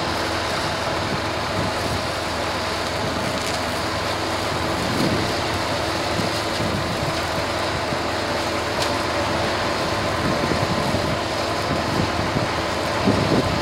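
Zetor 6748 tractor's diesel engine running steadily under load while its arm-mounted flail hedge cutter chops through a hedge. There are a few sharper cracks from branches near the end.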